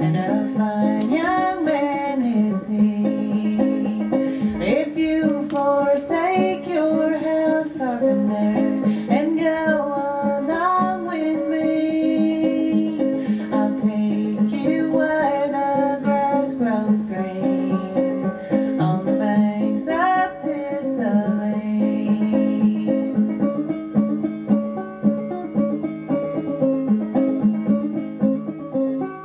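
Old-time string band music played back from a cassette tape: a banjo carries the melody over guitar accompaniment.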